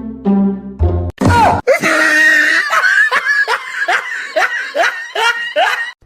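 About a second of music, then a loud burst of hysterical laughter: quick repeated rising whoops, two or three a second, that stop just before the end.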